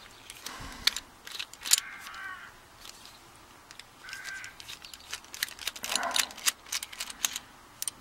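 Small screwdriver backing out the retaining screw from a chrome-plated brass padlock body: irregular light metallic clicks and scrapes, with two short squeaks about 2 and 4 seconds in and a busier run of clicks near the end.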